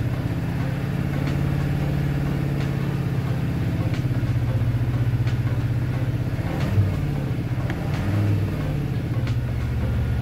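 Isuzu 10PD V10 diesel engine of a CXZ810 truck running steadily, heard from inside the cab: a deep, even, powerful note with a brief change in pitch and loudness about seven seconds in.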